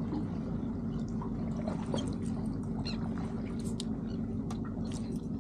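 A boat's motor humming steadily under water lapping, with scattered small splashes and ticks against the hull.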